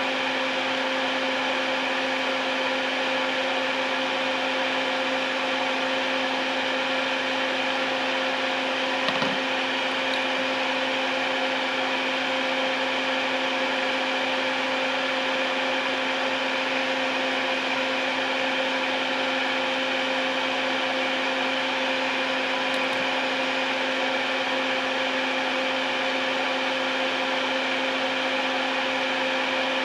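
Electric fan running steadily: an even rush of air over a constant motor hum. A single small knock about nine seconds in.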